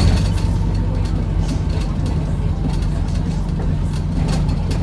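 Steady low drone of a Wright Gemini 2 hybrid double-decker bus heard from on board while it runs, with a short knock at the start and scattered light rattles.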